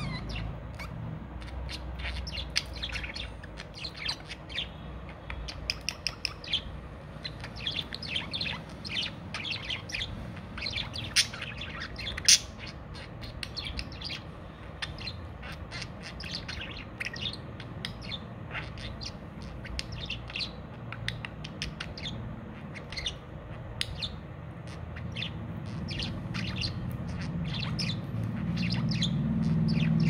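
Pet budgerigars chattering: a quick, steady stream of short chirps and tweets, one or two sharper calls standing out partway through. A low rumble swells near the end.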